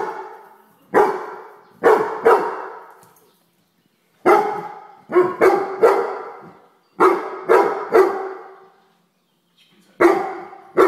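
Weimaraner barking at a house fly: about a dozen loud, sharp barks in quick groups of one to three with short pauses between, each bark echoing briefly.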